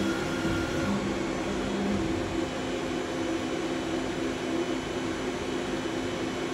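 CNC lathe with live tooling running: a steady machine hum with several held whining tones from its motors as the tool turret moves into position at the part. One lower tone drops out about two seconds in.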